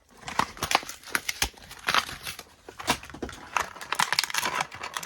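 Toy packaging wrapper being handled and torn open, crinkling with many irregular sharp crackles.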